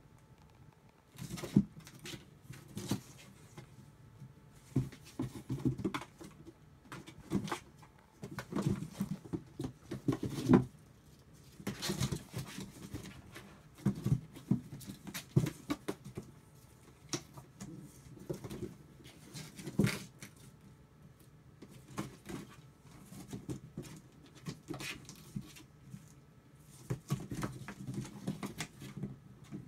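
Kittens scrambling on and inside a cardboard box, making irregular scuffs and knocks of paws and bodies against the cardboard.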